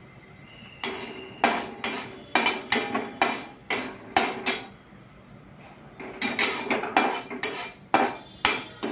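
A metal spoon scraping and knocking against an aluminium kadhai as whole black pepper, cloves and cinnamon are stirred while dry-roasting. The sharp strokes come about two or three a second, start about a second in and break off for a second or so about halfway through.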